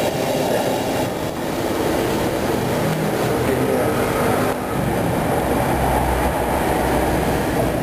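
Steady low roar of a gas burner under a wok of water at a rolling boil.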